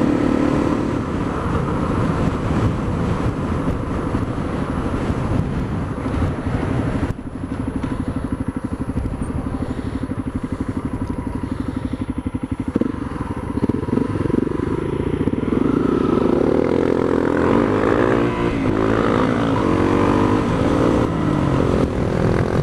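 Single-cylinder Honda dual-sport motorcycle engine heard from the rider's seat over wind rush. It cruises steadily, drops to low revs about seven seconds in, then accelerates again from about thirteen seconds with the pitch rising and falling through gear changes.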